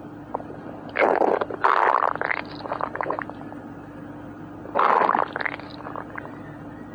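Human stomach growling in three gurgling bursts, about one, two and five seconds in, the middle one the longest, with a few weaker gurgles after the last.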